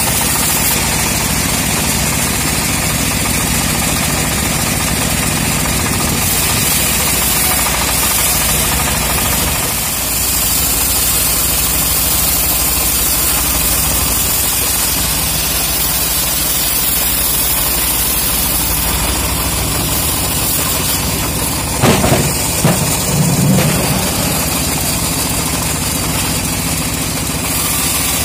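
Single-cylinder stationary diesel engine running steadily, driving a homemade bandsaw mill as its blade rips a teak log lengthwise. A brief louder clatter comes about three-quarters of the way through.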